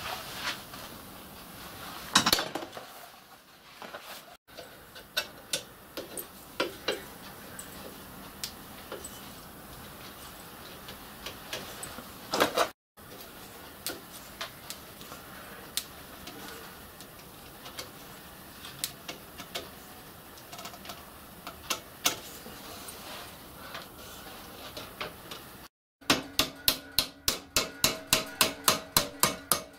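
Scattered knocks and clinks of steel and tools being handled at a bench vise. About 26 seconds in, a hammer starts striking a steel strip clamped in the vise, several ringing blows a second in an even run, bending the strip into angle.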